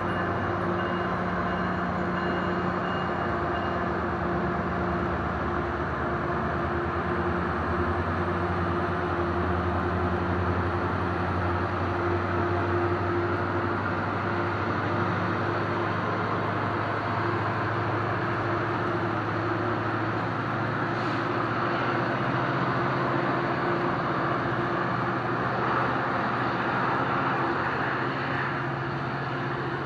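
Metrolink bilevel passenger coaches rolling slowly past on the rails, a steady rumble of wheels on track with a steady hum. The sound eases slightly near the end as the cab car at the rear goes by.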